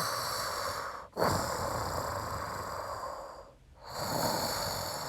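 Snoring: long rasping breaths of about two seconds each, one after another with short gaps. It is so noisy that it keeps everyone awake.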